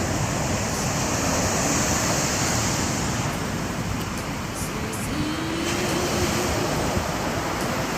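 Sea surf washing on the beach, a steady rush that eases a little about three seconds in.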